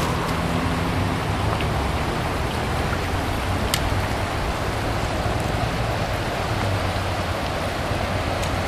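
Fast, shallow alpine river rushing over a gravel bed: a steady hiss of moving water, with a steady low hum underneath.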